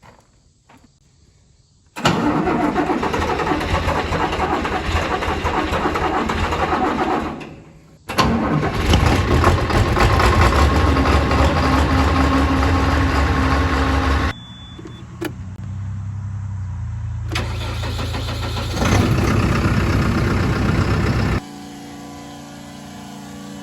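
Farm machinery engines running, in several abruptly cut clips. Loud engine noise starts suddenly about two seconds in, breaks off and comes back a few times, and settles into a quieter, steady engine sound near the end.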